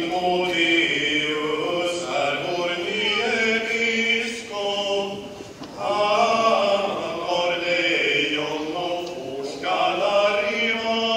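A few men singing a Swedish hymn verse to a medieval hymn melody. The verse is sung in phrases, with short breaks about halfway and near the end.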